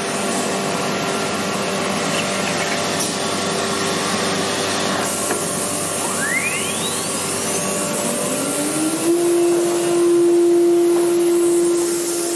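Steady rushing hiss of a CNC router's dust extractor and vacuum hold-down table. About six seconds in, the router spindle spins up: its whine rises in pitch for a few seconds, then holds at a steady pitch.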